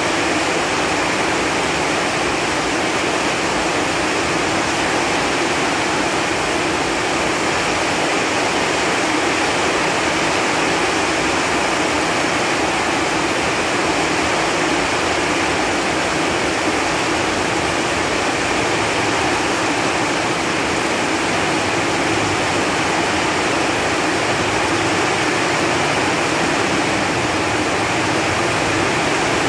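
Steady rain falling on leaves: a dense, even hiss that does not let up.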